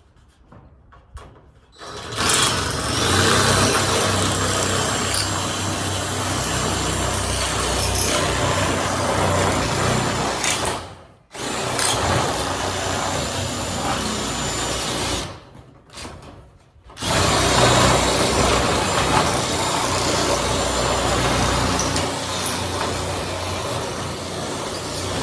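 Drill driving a DeWalt sheet-metal shear attachment, its blade going back and forth as it cuts across the ribs of metal roofing. It runs in three long stretches, stopping briefly about eleven seconds in and again for about a second and a half around fifteen seconds in.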